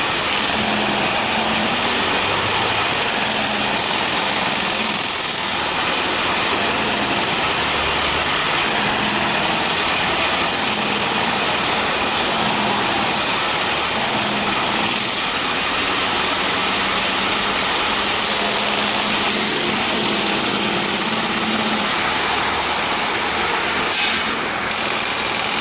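Pneumatic jackhammer hammering continuously as it breaks up road asphalt, over the steady running of the air compressor's engine. The hammering drops out briefly near the end.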